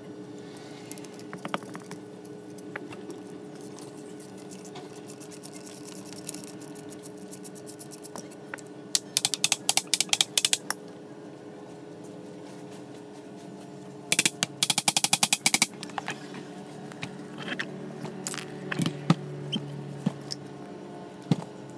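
Ratchet wrench clicking in two quick runs as bolts on the golf cart motor's end are turned out, then scattered metal knocks and clatter as the motor is taken apart and the armature lifted from its housing.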